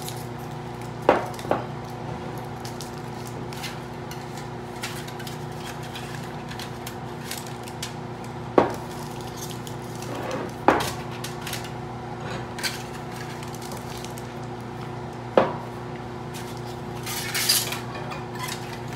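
Glass grain-spawn jars knocking and clinking as lids are screwed on and the jars set down on a wooden table, about five sharp knocks spread out, with aluminium foil crinkling near the end. Under it all runs the steady hum of a laminar flow hood's fan.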